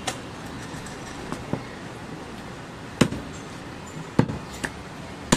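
Heavy butcher's knife chopping goat meat on a wooden log block: a few sharp, separate knocks at irregular intervals, the loudest about three seconds in, over steady background noise.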